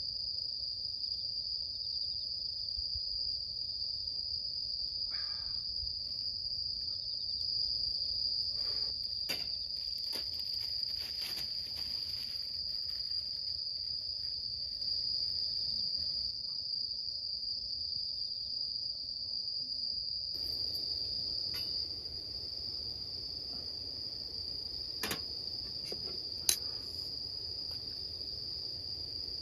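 Insects trilling steadily at one high pitch without a break, with a few short sharp clicks, the loudest near the end.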